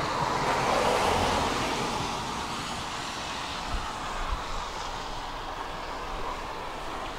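Tram running along the track, a steady rumble and rush that swells during the first two seconds and then eases. Two short low thumps about half a second apart come near the middle.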